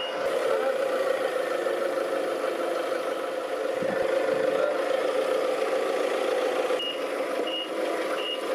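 A heavy machine's engine running steadily. Near the end its reversing alarm starts beeping, short high beeps about every 0.7 seconds.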